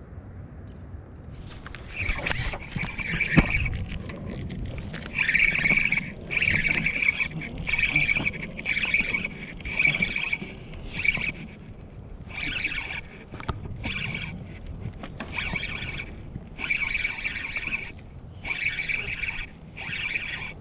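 Daiwa Crossfire spinning reel's drag buzzing in repeated bursts of about a second each, starting about two seconds in, as a hooked salmon takes line against a drag set super loose.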